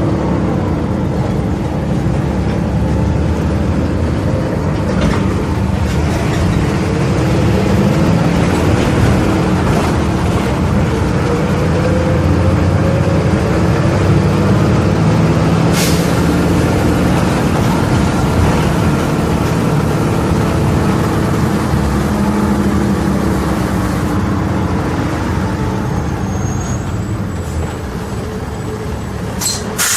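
Volvo B270F bus engine running under way, its pitch rising and falling as it pulls through the gears. A short hiss of air about halfway through.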